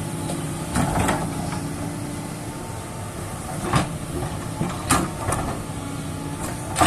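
JCB excavator's diesel engine running steadily under work, with about five sharp metallic clanks and knocks spread through it.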